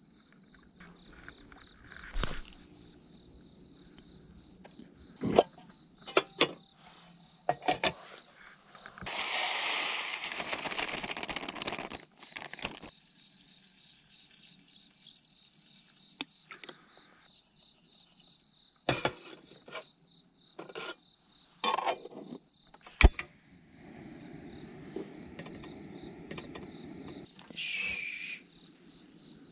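Insects trilling steadily on several high pitches, with scattered knocks and clicks and a loud rustling noise lasting about three seconds roughly a third of the way in.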